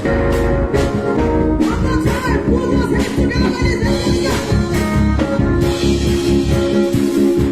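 Music with a steady beat and held notes, with what may be a singing voice.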